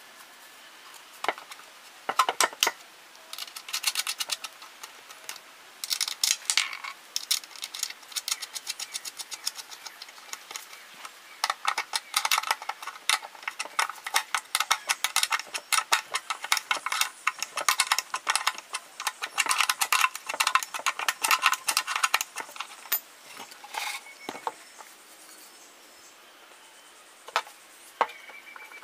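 Rapid metallic clicking and rattling in bursts, with a long busy stretch in the middle: bolts and a bracket being fitted by hand to the side of a wooden line array speaker cabinet.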